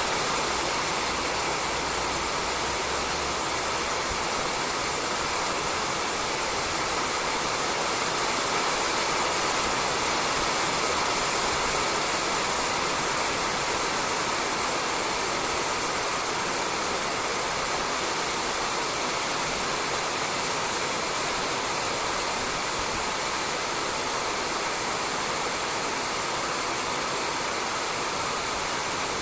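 Steady rain falling on a roof, an even hiss that does not let up.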